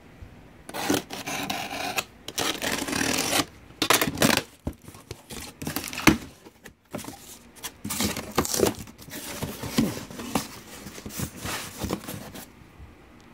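Utility knife cutting the packing tape on a cardboard shipping box, then the flaps and packing being pulled open. Irregular scraping, tearing and rustling of cardboard and plastic, stopping shortly before the end.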